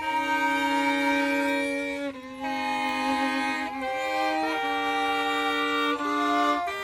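A fiddle playing a slow hymn-like melody of long held notes, each sustained for a second or two before moving to the next, one note about three seconds in wavering slightly.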